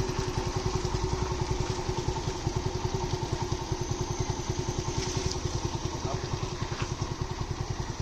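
A small engine idling, with an even, rapid pulsing beat and a steady hum.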